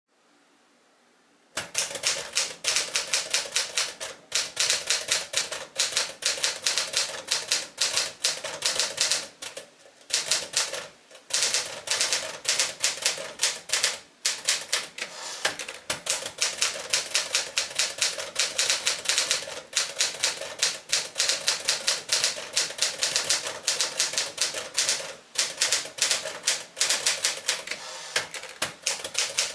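1964 Smith-Corona Sterling portable typewriter being typed on: rapid crisp keystrikes of the typebars against the platen, several a second, with brief pauses between bursts. Typing starts about a second and a half in.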